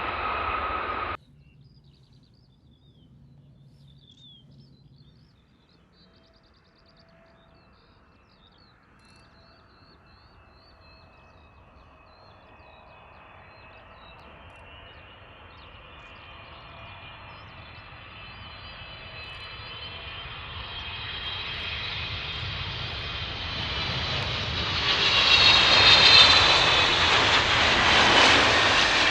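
Large jet airliner approaching to land, its engine noise rising steadily from faint to loud and peaking near the end, with a high engine whine over a low rumble. It opens with a louder sound from the previous clip cutting off sharply about a second in, and a few faint bird chirps sound in the quiet before the jet builds.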